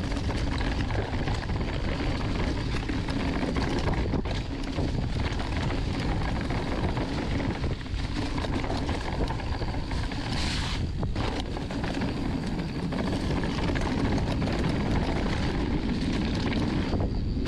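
Mountain bike riding downhill on a dirt trail: wind rushing over the microphone with tyres rolling and the bike clattering over rough ground. The noise is steady throughout, with many small rattles and knocks in it.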